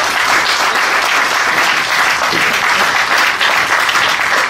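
Audience applauding, a steady dense wash of clapping.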